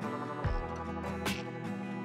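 Background music: instrumental with sustained notes over a steady beat, a low hit roughly every second.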